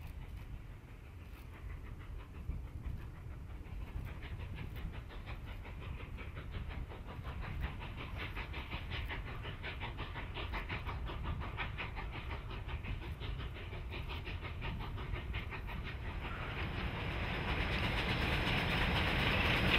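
Narrow-gauge K-36 2-8-2 steam locomotive working a freight train, its exhaust beating in a fast, even rhythm over a low rumble. The sound grows steadily louder near the end as the locomotive approaches.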